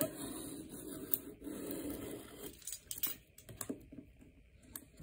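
Cardboard packaging being handled and pulled at: a scraping rustle for about the first two and a half seconds, then scattered light clicks and taps.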